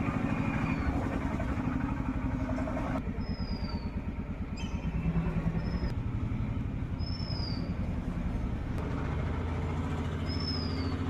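A motor vehicle's engine running close by, a steady low pulsing rumble throughout. Four short, high chirps that slide downward in pitch sound over it.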